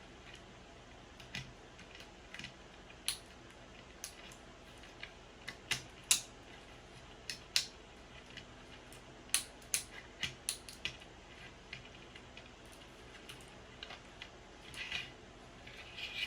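Small wooden model-kit pieces clicking and tapping as they are handled and snapped into place, a scatter of sharp separate clicks with a quicker run of them about nine seconds in.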